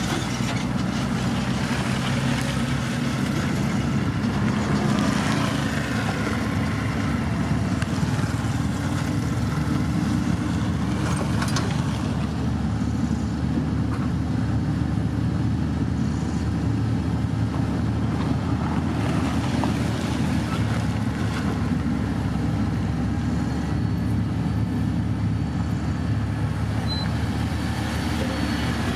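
Diesel engine of heavy road-building machinery running steadily, with an even low drone.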